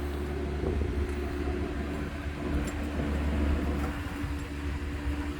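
Steady low mechanical rumble with a constant hum, from a running machine.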